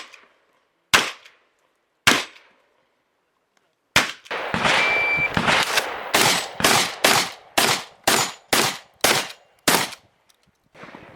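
Shotgun shots in an IPSC shotgun stage: three shots about a second apart, a short pause, then a fast string of roughly a dozen shots at about two a second before they stop near the end.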